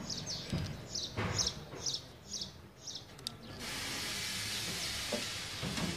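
A bird chirps, short high notes about twice a second. Then, a little past halfway, a steady high hiss starts and holds.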